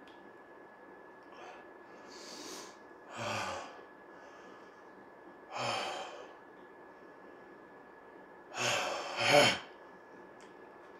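A man breathing hard through his mouth around a lollipop stick, with about five heavy sighing breaths; the last two, close together near the end, are the loudest. He is suffering the burn of a 9-million-Scoville chili-extract lollipop.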